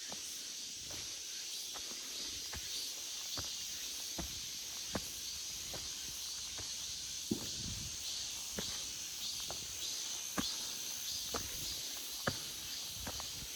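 Cicadas buzzing in a steady, high chorus, with short sharp clicks every half second to a second over it.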